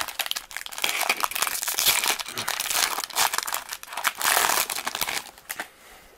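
Foil wrapper of a baseball card pack crinkling and tearing as it is ripped open by hand, dying away near the end.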